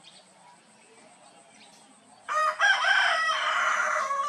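A rooster crowing once, starting about two seconds in and lasting about two seconds, loud over faint outdoor background.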